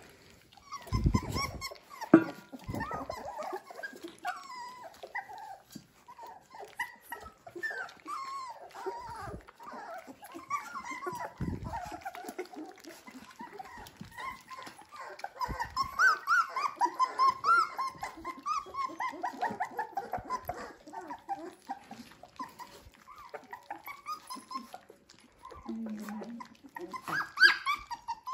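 A litter of 23-day-old Dalmatian puppies whining and squeaking continuously while they feed from a shared bowl. A few dull knocks come in the first three seconds and another about eleven seconds in.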